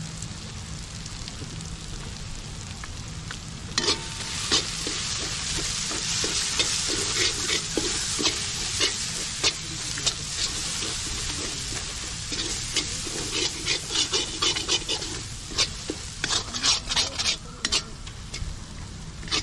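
Onion-tomato masala with freshly added spice powders sizzling in a black metal kadai. From about four seconds in, a metal ladle stirs it, scraping and clinking against the pan, and the sizzle grows louder while it stirs.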